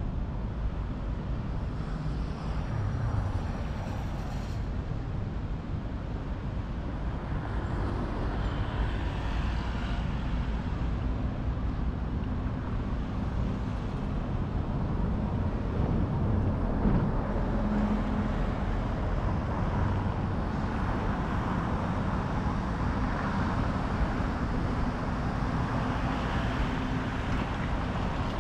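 Steady city street ambience: road traffic running past, a continuous low hum of cars with small swells as vehicles pass.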